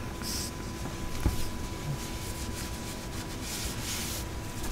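Hands rubbing and stroking a small dog dressed in a padded nylon jacket, with soft fabric rustles near the start and again near the end and one small knock about a second in. Under it runs the steady hum of a diesel parking heater blowing warm air into the car.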